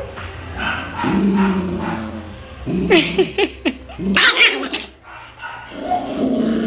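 Two dogs growling at each other in a scuffle, with a loud burst of snarling and barking about three seconds in, then low growling again.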